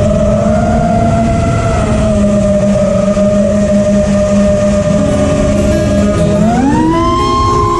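FPV quadcopter's brushless motors whining at a steady pitch, then gliding sharply higher about six and a half seconds in as the throttle is pushed up.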